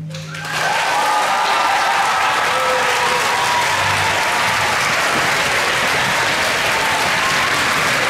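Audience applauding loudly, with a few cheers, starting about half a second in as the orchestra's final held note dies away.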